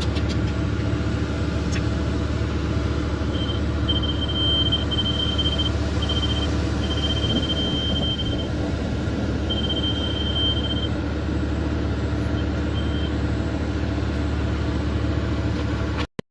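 Excavator's diesel engine running steadily. From about three seconds in to about thirteen seconds, it is joined by a high steady beep that comes and goes in broken stretches of differing length.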